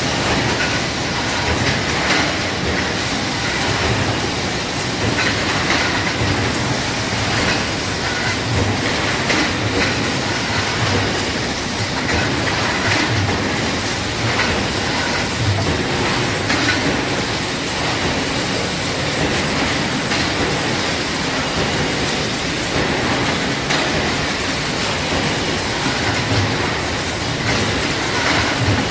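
Automatic 20-litre steel pail production line running: a steady mechanical clatter with low knocks and clanks every second or two as the pails are conveyed and pressed in the forming station.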